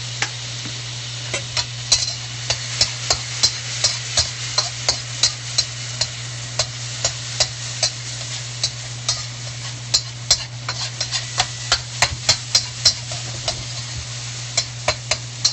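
Minced garlic and crushed red peppers sizzling in sesame oil in a wok, with a spatula scraping and tapping against the wok roughly twice a second as they are stirred.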